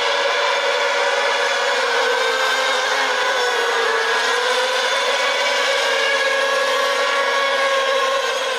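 Several radio-controlled racing model boats running flat out: a steady, high-pitched motor whine whose pitch drifts slowly up and down as the boats race.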